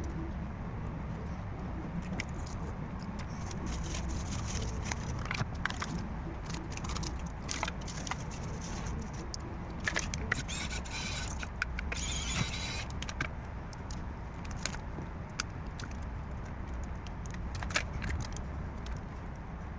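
Small scattered clicks and taps of tools and phone parts being handled during a repair, over a steady low hum, with two short hissing noises about halfway through.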